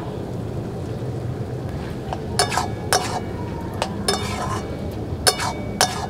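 A steel plate lid and a metal spatula clinking against an iron kadai as the lid comes off and the simmered curry is stirred: a handful of sharp, ringing clinks starting about two seconds in, over a steady low rumble.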